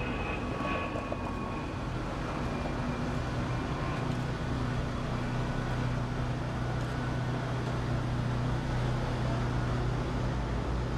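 Heavy-haul truck slowly pulling a long multi-axle trailer rig: a steady low diesel-engine drone over tyre and road noise. A faint high squeal fades out in the first couple of seconds.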